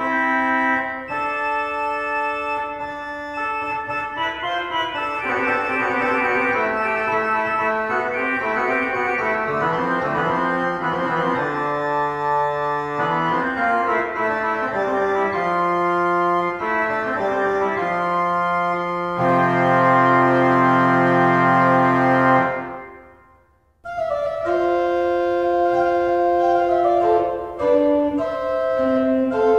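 Organ music playing slow, sustained chords. About three-quarters of the way through, a loud full chord fades away to near silence, and then the organ starts again abruptly.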